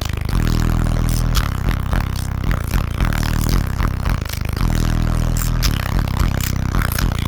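A car audio system's subwoofers playing heavy, held bass notes very loud, with sharp clicks over the top.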